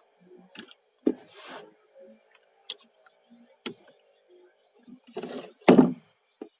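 Scattered sharp clicks and knocks, building to a cluster of heavier thumps about five to six seconds in, over a steady high-pitched hiss.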